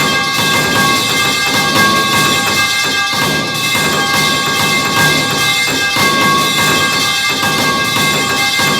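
The falling metal pipe sound effect played over and over, so the clangs overlap into an unbroken run of metallic impacts. The same few ringing tones of the pipe sustain throughout.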